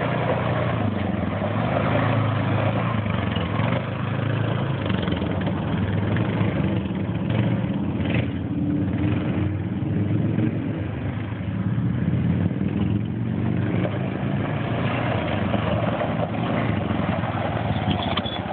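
Four-wheel ATV engine running steadily as it is ridden around a dirt yard.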